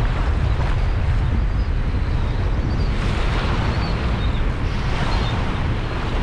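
Strong wind buffeting the microphone in a steady roar, over the wash of small choppy waves on the shore.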